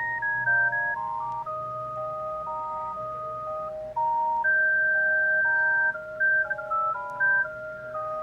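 Panasonic GD75 mobile phone playing a ringtone: a simple electronic tune of pure beeping tones, a stepping melody over a steady lower note.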